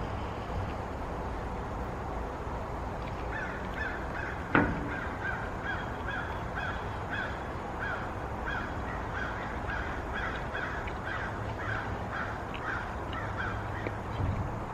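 A bird calling in a long, steady series of short, even notes, about three a second, starting about three seconds in and lasting about ten seconds. A single sharp click sounds about four and a half seconds in.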